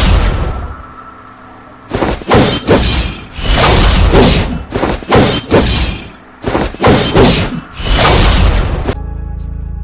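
Waves crashing in repeated loud surges, each rushing in and dying away over a second or so, with a deep rumble under them. Near the end the surf cuts off suddenly and music begins.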